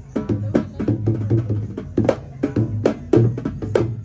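A steel-shelled two-headed drum, dholak-style, is played in a quick, steady rhythm. Low booms alternate with sharp, bright slaps.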